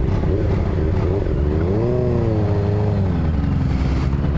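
Honda Magna cruiser's V4 engine running as the motorcycle pulls away, its pitch rising under throttle, dropping back about halfway through, and climbing again near the end.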